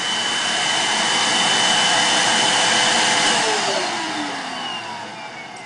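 Upright vacuum cleaner running steadily, then switched off about three seconds in, its motor whine falling in pitch and fading as it winds down.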